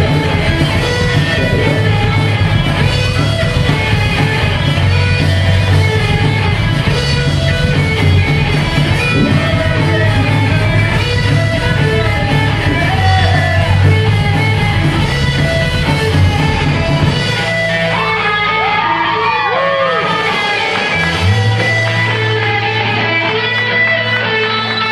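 A live rock band plays loudly, with a singer, electric guitar, bass guitar and drums. About 17 seconds in, the drums and bass drop out, leaving guitar with bending notes; the bass comes back in a few seconds later.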